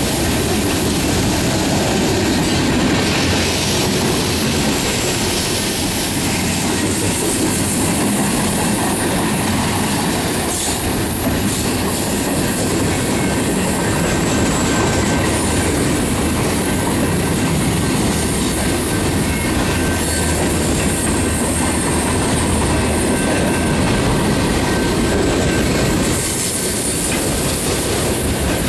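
Freight cars rolling past close by at speed: a steady rumble of steel wheels on the rails with clattering over the rail joints, and a thin steady high tone above it.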